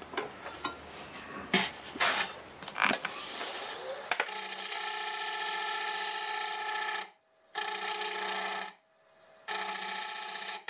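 Wood lathe turning a bowl while a hand-held turning tool cuts its top edge, wood that does not cut cleanly. Irregular scraping strokes with sharp clicks for about four seconds, then a steady pitched cutting hum that drops out twice briefly.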